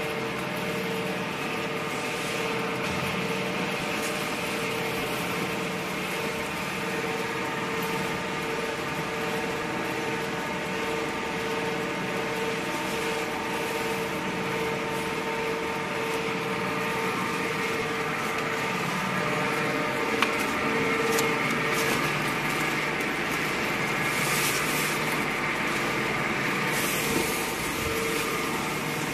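Veneer glue spreader running: a steady motor and gear hum with a sustained whine as its rollers turn, and a couple of brief clicks in the second half.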